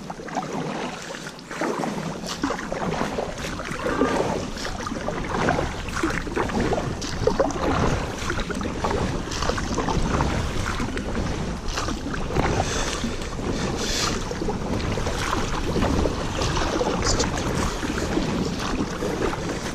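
Water splashing and churning around a canoe on a shallow river, with many short splashes and knocks throughout.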